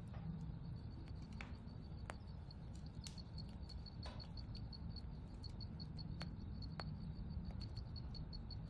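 A cricket chirping steadily in quick, even, high-pitched pulses, about five a second, over a low rumble, with a few faint scattered clicks.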